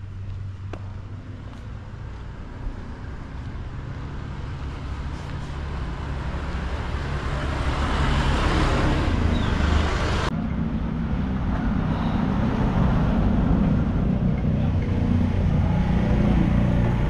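Motorbike ride heard from the rider's seat: a steady low engine drone with road and wind rush. The rush swells about halfway through as an oncoming motorbike passes, then the sound changes abruptly to a louder, deeper engine drone.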